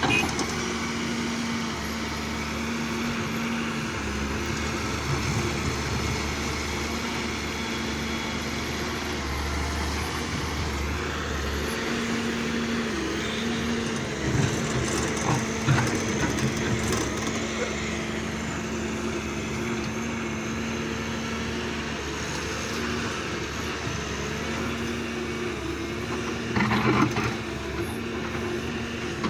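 Diesel engine of heavy earthmoving machinery running steadily, with a few knocks and scrapes midway and a louder clatter near the end.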